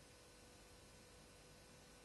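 Near silence: room tone, a faint steady hiss.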